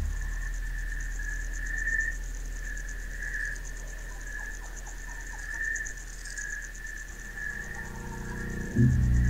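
Insects chirring: a high, fast-pulsing trill and a lower wavering tone, over a faint low hum. Near the end a loud, low musical drone comes in.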